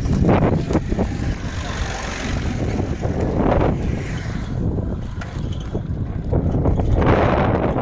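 Wind rumbling on the microphone of a moving bicycle, mixed with the engine of a tractor on the road, with three louder swells of noise.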